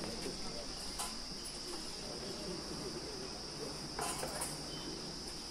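Steady high-pitched chirring of an insect chorus, with faint distant voices beneath and a couple of brief clicks.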